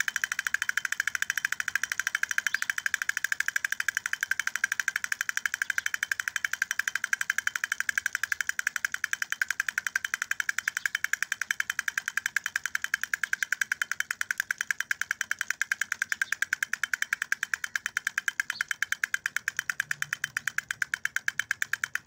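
Toy elephant drummer tapping its two plastic sticks on a small plastic toy drum in a fast, even rhythm of several taps a second, with a tinny ringing.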